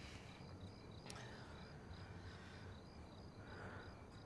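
Faint crickets chirping in a steady, even rhythm over quiet night ambience, with a single small click about a second in.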